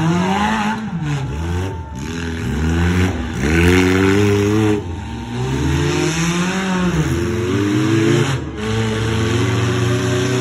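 Monster truck engine revving hard, its pitch climbing and falling again and again with brief drops off the throttle, then holding steady near the end.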